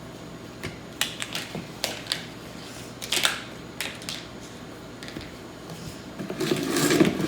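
Plastic Hot Wheels track pieces and connectors being handled and clicked together: a string of sharp clicks and knocks, then a louder, longer clatter near the end.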